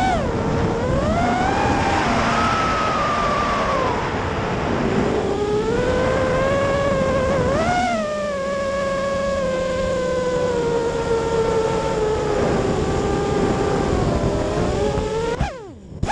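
FPV racing quadcopter's brushless motors and propellers whining as it flies, the pitch rising and falling with the throttle, over a rush of wind noise. Near the end the motors spool down with a falling whine and cut off as it lands.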